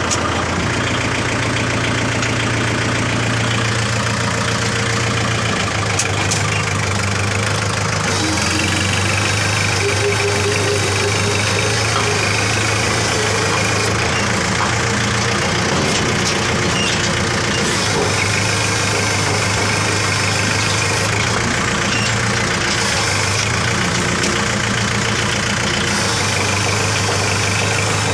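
Kubota tractor's diesel engine running steadily.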